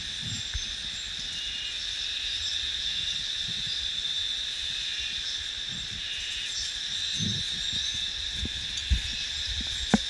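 Insects singing: a steady, high-pitched drone that holds evenly throughout. Soft footfalls sound on the dirt trail underneath.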